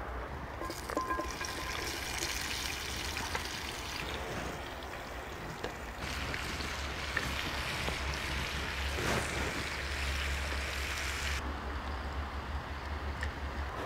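A small wood fire crackling, then sliced meat frying in a cast-iron skillet over the fire with a steady hissing sizzle and a few light pops. The sizzle cuts off abruptly near the end.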